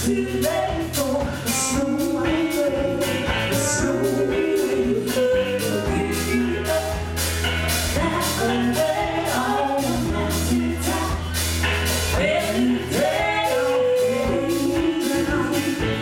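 Live roots band playing a song: electric guitars, bass and banjo under sung vocals, with a steady beat.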